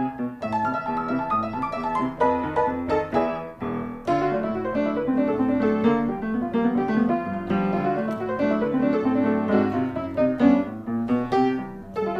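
Background piano music: a lively tune of quick, evenly spaced notes.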